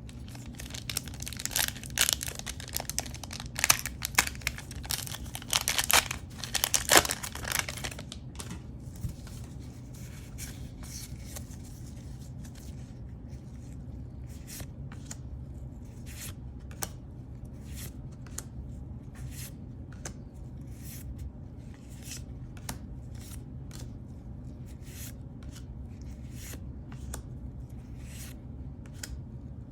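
Booster pack wrapper being torn open with loud crinkling for about the first eight seconds, then light scattered clicks of trading cards being handled and flipped one by one, over a steady low hum.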